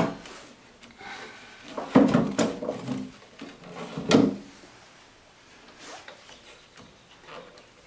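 A 12-volt sealed lead-acid battery, wedged tightly, being shifted and scraped inside a metal battery compartment: rubbing with sharp knocks about two and four seconds in, then only faint handling.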